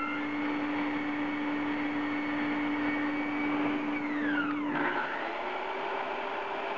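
Mafell Z5EC portable bandsaw's 2250 W motor running under load as its blade cuts down through a timber beam: a steady hum with sawing noise. About five seconds in there is a falling sweep and the hum settles slightly higher.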